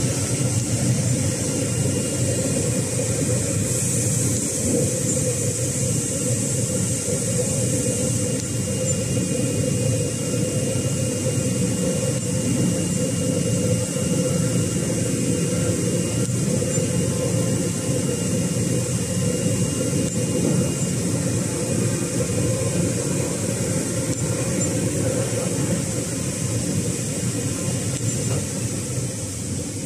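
Flatbed CNC cutting machine running as its tool heads cut out a sheet of printed labels: a steady mechanical hum and hiss with a faint high whine.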